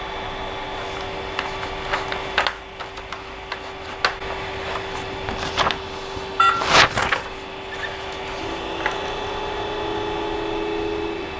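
Creality CR-10S Pro 3D printer humming steadily from its fans, with paper rustling and light clicks while the bed is levelled by hand; the loudest rustle comes about six and a half seconds in. Near the end a second, lower whine joins for about three seconds as the stepper motors carry the print head to the next levelling point.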